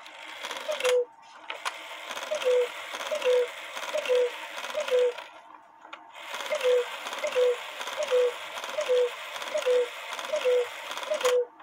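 Antique Faller & Söhne cuckoo clock calling 'cu-ckoo' from its two bellows pipes, a short higher note then a longer lower one, about one call every 0.8 s. There are five calls, a brief break, then seven more, over the whir of the running strike train, and it all stops abruptly. The high-note bellows wire has just been bent and refitted, and the result is 'not perfect, but it'll work'.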